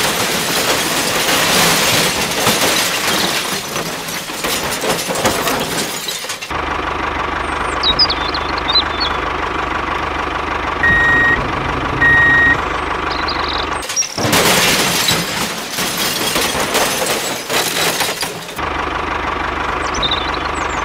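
Loose coal grit sliding and rattling out of a tipping toy dump-trailer bed for about six seconds, then an engine running steadily with two short beeps. A second long pour of grit comes midway, and the engine runs again near the end, with faint bird chirps over it.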